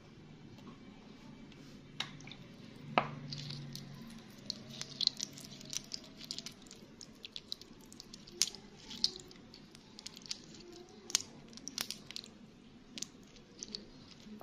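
Wet stones and glass marbles clicking and knocking against each other in a hand at irregular intervals, with water dripping and trickling over them.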